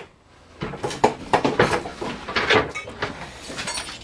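Knocks, bumps and scrapes of a heavy, switched-off electric grinder motor with a wire brush wheel being picked up from under a workbench. A string of irregular clatters starts about half a second in, with a faint metallic scrape near the end.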